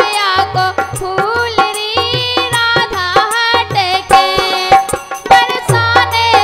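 Music: a woman singing a Bundelkhandi traditional Kartik folk song, accompanied by harmonium and a two-headed hand drum.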